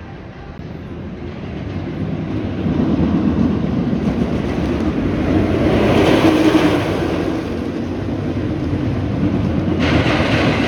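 Roller coaster train running along the track of the Wildcat's Revenge hybrid coaster during testing, a rumble that swells as the train comes closer, loudest about six seconds in, then goes on strongly.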